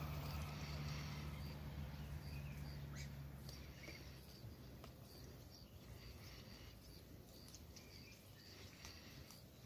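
Ducklings, likely Muscovy ducklings, peeping faintly in short high chirps that repeat throughout. Under them a low engine-like hum fades out over the first few seconds.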